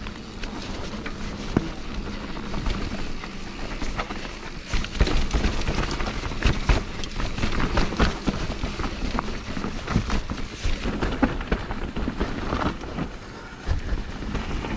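Enduro mountain bike descending a wet, muddy trail, its tyres running and sliding on the dirt. A steady noisy rush with a low rumble, broken by many small knocks and rattles from the bike going over bumps.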